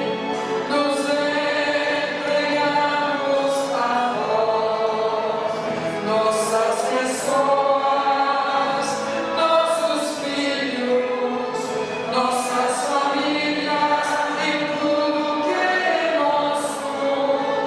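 A group of voices singing a devotional hymn together, holding long notes that move step by step in pitch, with the hiss of sung consonants between them.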